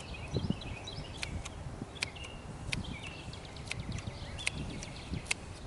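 Trauma shears snipping through a worn rubber handlebar grip, a sharp click with each cut, against wind buffeting the microphone and birds chirping.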